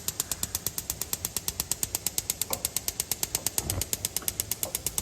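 Gas range spark igniter clicking rapidly, about nine or ten clicks a second, while a burner is being lit, with a brief dull knock about three and a half seconds in.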